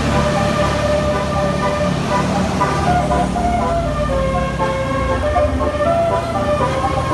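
Indonesian 'telolet' multi-tone bus horn playing a tune in held notes that step from one pitch to the next, over the steady low running of the vehicle's engine.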